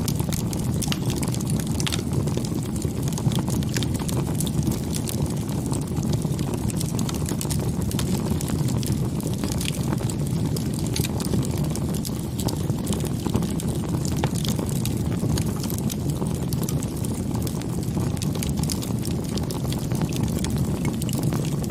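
Wood fire burning, with a steady low rumble and frequent small crackles and pops scattered throughout.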